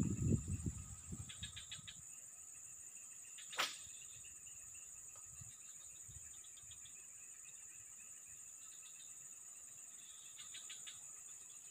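Steady high-pitched insect drone with short trains of rapid chirping from insects, and one quick swish of a fishing rod being cast about three and a half seconds in. Low rustling in the first two seconds.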